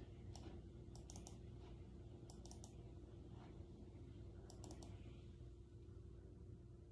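Faint computer mouse clicks in quick groups of two or three, heard three times, over a faint steady hum.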